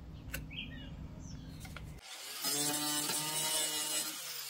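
Angle grinder with an abrasive disc starts about halfway in and grinds the rusty sheet steel of a truck cab corner, taking it down to find sound metal. Near the end it is let off and winds down with a falling whine.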